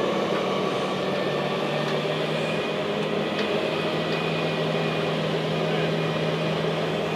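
Wiggins Marina Bull forklift's engine idling with a steady, even hum that does not change in pitch.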